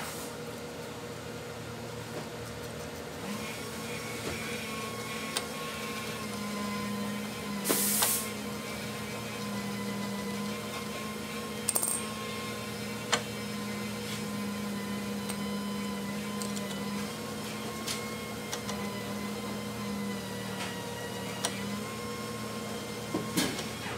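Hand tools clinking against metal bolts and the concrete floor while a motorcycle's crash bar mounting bolts are loosened and removed: a few sharp clinks, with a brief louder rattle about eight seconds in. A steady hum of fixed pitches runs underneath.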